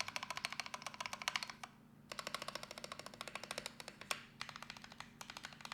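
Typing on a Drop Alt 65% low-profile mechanical keyboard fitted with lubed, filmed Gateron Yellow Pro linear switches: a fast run of keystrokes, a brief pause about two seconds in, then typing again that thins out to a few separate key presses near the end.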